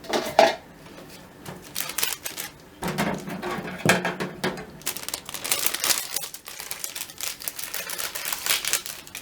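Plastic microwave pasta cooker and its contents being handled: a sharp click, then a long run of quick, irregular clicks and clatter.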